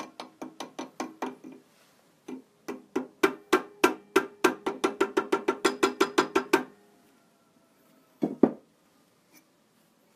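Small hammer tapping silver wire into the turned grooves of a rosewood prayer-bead piece held still in the lathe, inlaying the wire. Quick, even taps at about five or six a second, each with a short ring, stop for a moment after a couple of seconds, resume in a longer run, then two last taps near the end.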